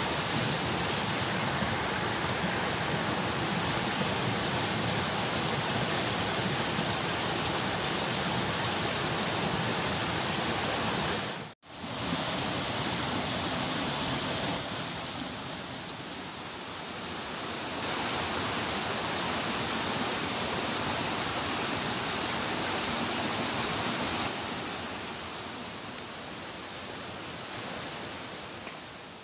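Rushing water of river rapids and a waterfall, a steady, even wash of noise. It drops out for a moment about twelve seconds in and fades away near the end.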